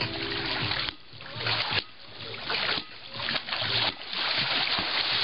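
Pool water splashing and sloshing as several people wade and lunge about in a swimming pool, swelling and easing roughly once a second, with a brief voice at the start.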